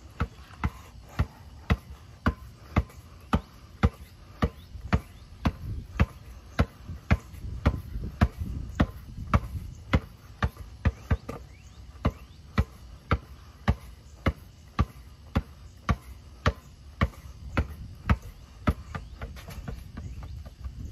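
A basketball dribbled in a steady rhythm, about two bounces a second, during a right-leg between-the-legs dribbling drill.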